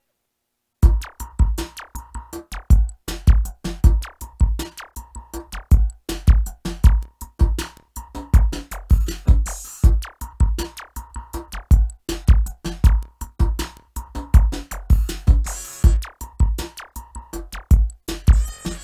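Electronic music starts after about a second of silence: a drum-machine beat of heavy kicks and quick ticking hits over a steady synth tone, with two short hissing swells.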